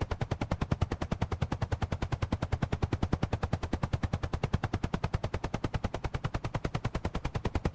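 Helicopter rotor blades chopping steadily at about ten beats a second, with no engine noise under them.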